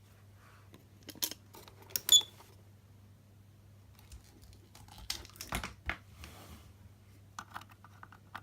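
Scattered clicks and light handling knocks in small clusters, the loudest about two seconds in, over a steady low hum.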